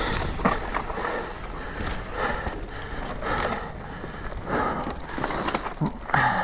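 Mountain bike rolling over a dirt trail, with tyre rumble and light rattles and clicks from the bike. Over it the rider breathes hard about once a second while climbing.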